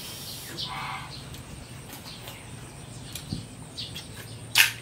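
Small clicks and mouth smacks of eating, then one sharp clink of a metal spoon near the end.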